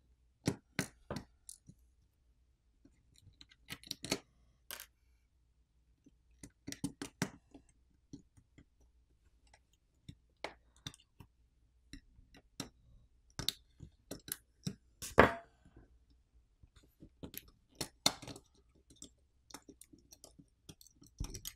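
Irregular small clicks and taps of a metal pry tool against a Sony Xperia 10 III's main board and frame as the board is pried up and lifted out, the sharpest click a little past the middle.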